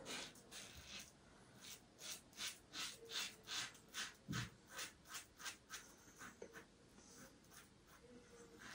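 Razorock Superslant L2++ double-edge slant razor with a Triton blade scraping through lathered stubble in short strokes, about two or three a second, easing off for a couple of seconds past the middle before picking up again near the end. A dull low thump about four seconds in.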